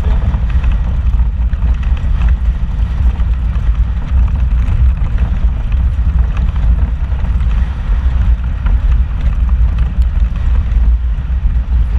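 Off-road vehicle driving slowly over a rocky dirt trail, heard from inside the cab: a steady low rumble of engine and tyres on loose rock, with a few faint clicks and rattles.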